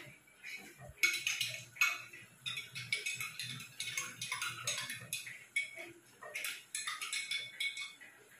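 A cooking utensil scraping and knocking against a pot or pan on the stove: a run of irregular clinks and scrapes.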